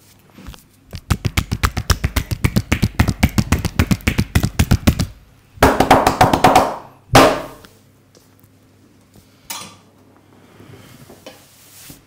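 Rapid percussive hand-tapping of a barber's massage, about ten strikes a second for about four seconds, followed by two short, loud bursts of noise.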